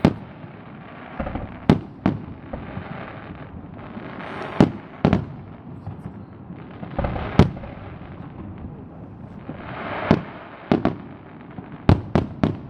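Fireworks display: firework shells bursting with sharp bangs every second or two, with stretches of crackling between them, and a quick run of three bangs near the end.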